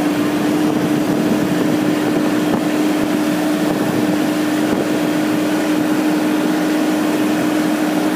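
Massey Ferguson 1526 compact tractor's three-cylinder diesel engine running steadily at a fast, even speed of about 2,300 rpm, with a constant pitched hum.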